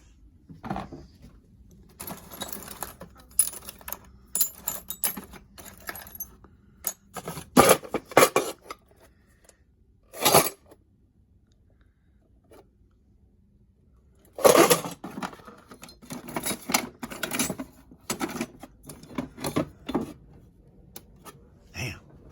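Clinking and clattering of small hard objects being handled and shifted about, in two long spells of rattling with a single sharp knock between them.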